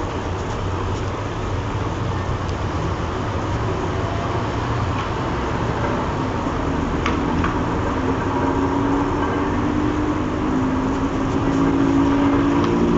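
A steady low rumble from the sky, with a droning tone that comes in about halfway through and grows louder toward the end, the kind of sound reported as 'strange sounds in the sky'. A couple of faint ticks sound about seven seconds in.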